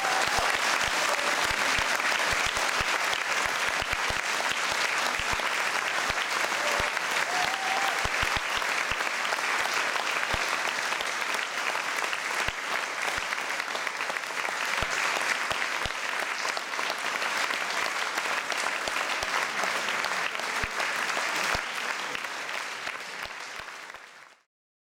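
Audience applauding steadily, thinning out near the end and then cutting off abruptly.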